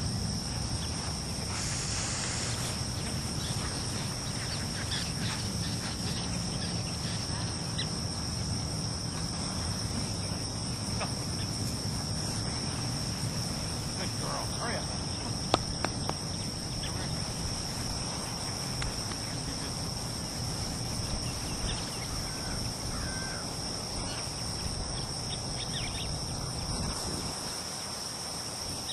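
Steady chorus of crickets, two unbroken high-pitched trills, over a low wind-like rumble, with a couple of sharp clicks about halfway through.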